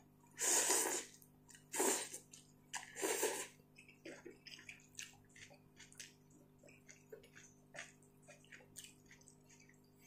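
A person slurping ramen noodles, three noisy slurps within the first few seconds, followed by faint chewing and lip-smacking clicks.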